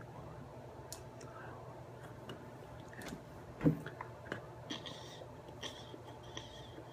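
An e-cigarette being handled, with scattered small clicks and one loud thump a little past the middle, then short airy hisses as the iStick 30 W vape with its GS airflow atomizer is drawn on near the end.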